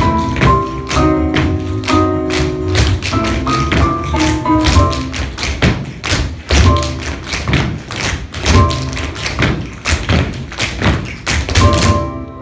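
Several dancers' tap shoes striking a wooden floor in quick, rhythmic taps over recorded music. Taps and music stop together just before the end.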